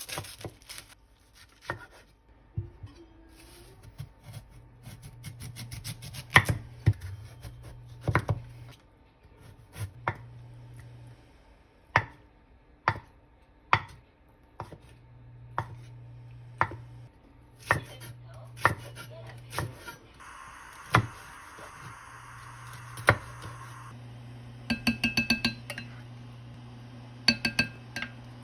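Kitchen knife chopping ingredients on a cutting board in separate strokes about once a second, with a few seconds of steady hiss about two-thirds of the way through and quick runs of clicks near the end.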